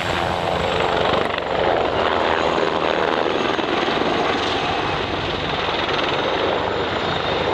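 Eurocopter Tiger twin-engine attack helicopter in flight, a steady rush of rotor and turbine noise.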